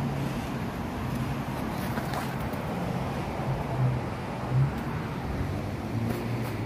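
Steady street traffic hum with wind on the microphone, swelling briefly a few times.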